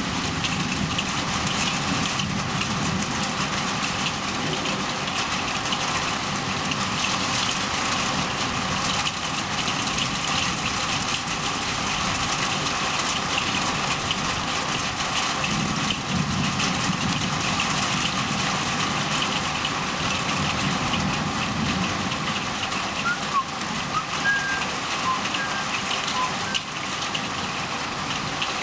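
Heavy thunderstorm rain pouring steadily, with a low rumbling swelling twice, about two seconds in and again past the halfway point.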